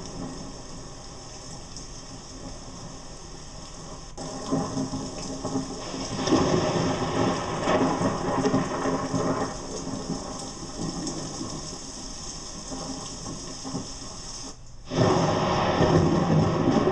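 Thunderstorm: steady rain with thunder rumbles, growing louder about four and six seconds in. It cuts out for a moment near the end and comes back louder.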